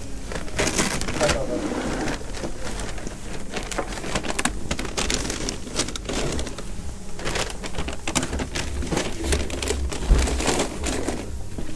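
Rustling and crinkling of an insulated delivery backpack's plastic-coated shell and foil lining as it is opened, with a paper carrier bag being packed inside.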